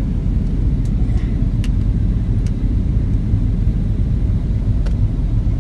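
Steady low rumble of an airliner's engines and rushing air, heard inside the passenger cabin, with a few faint clicks.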